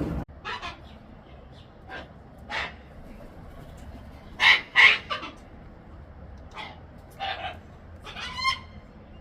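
Cockatoo calling in short, harsh squawks, about seven spread out, the loudest two close together about halfway through.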